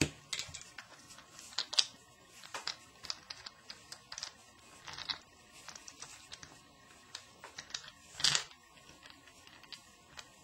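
Scattered small clicks and ticks of screws being backed out of a shower valve's front cover and handled, with a longer, louder scrape about eight seconds in.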